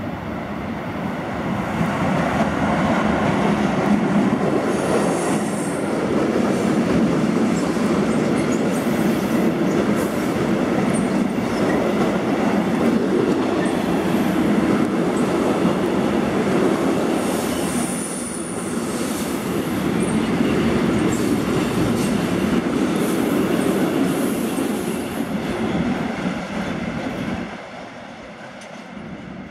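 Long electric-hauled freight train of covered wagons rolling past, a dense steady rumble of wheels on rail joints with brief high wheel squeals on the curve. The noise falls away sharply near the end as the last wagons move off.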